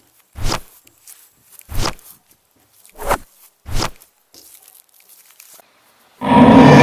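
Four slow, heavy footsteps spaced about a second or more apart. Near the end a loud sustained sound with several steady tones starts suddenly and is the loudest part.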